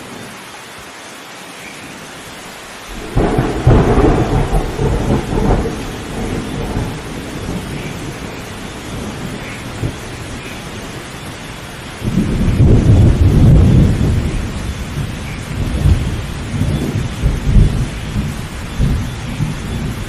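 Thunderstorm: steady rain falling, with two rolls of thunder, the first breaking suddenly about three seconds in and the second, louder, about twelve seconds in, each rumbling on for several seconds.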